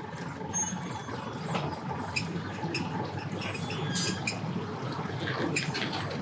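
Boat engines running steadily, a low rumble, with scattered short high-pitched squeaks over it.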